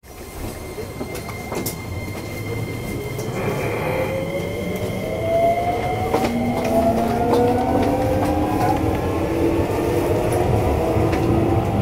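Electric commuter train pulling away from a station, heard from inside the carriage. Its traction motors whine in several tones that climb steadily in pitch from about four seconds in as the train gathers speed, over a low rumble of the wheels on the track.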